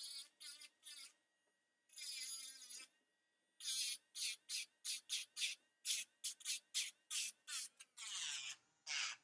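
Small motor of a battery-powered electric nail file whining at high pitch, its pitch wavering, as a pointed detail bit is worked against a fingernail. It comes in bursts: a few longer ones at first, then quick short bursts about three a second from about halfway through.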